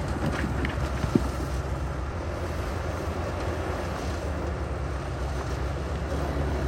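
Heavy diesel construction machinery running steadily with a deep, even rumble, with a single sharp knock about a second in and wind on the microphone.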